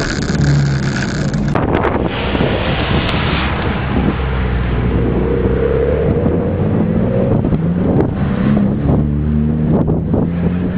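Car engine running at low revs, heard from inside the cabin, its pitch wavering slightly up and down, with some wind noise on the microphone.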